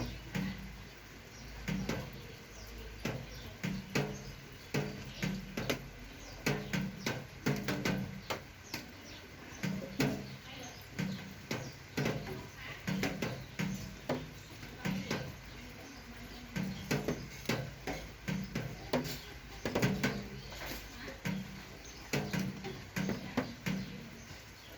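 Irregular clicks and knocks, several a second, of small parts and tools being handled while a bicycle suspension fork is taken apart for service.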